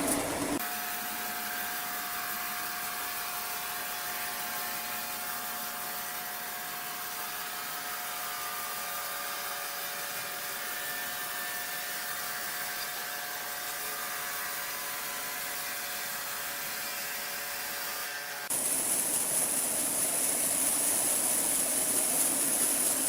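Sawmill machinery running with a steady hum carrying a few held tones. About three quarters of the way through it cuts to a louder, steady hissing noise.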